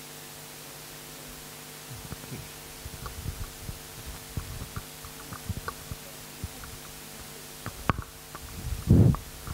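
Microphone handling noise: scattered low knocks and bumps over a steady electrical hum, with a louder bump near the end.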